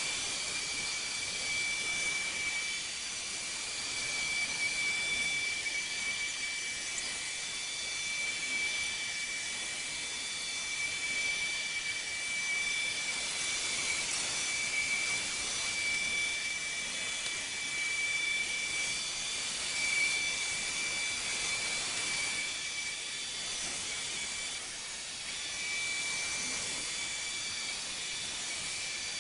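Neato XV-12 robot vacuum running, a steady high-pitched whine from its vacuum motor over an even hiss.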